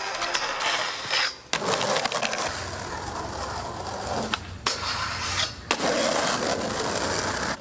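Skateboard sounds in several short takes: the trucks grinding metal handrails and urethane wheels rolling on pavement, with a few sharp clacks of the board. The sound changes abruptly at each cut.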